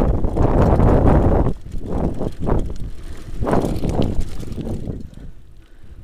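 Mountain bike rolling fast downhill over a bumpy grass trail: tyre rumble with irregular knocks and rattles over the bumps. The noise drops off in the last second as the bike reaches a smoother dirt road.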